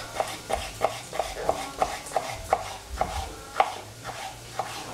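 Kitchen knife chopping vegetables on a cutting board in a steady rhythm of about three cuts a second.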